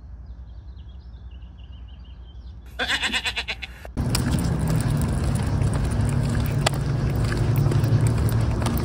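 A brief pulsing, buzzing sound lasting about a second near three seconds in, cut off abruptly, then loud rushing handling noise with scattered footfalls and clicks as a phone camera is carried along the pavement.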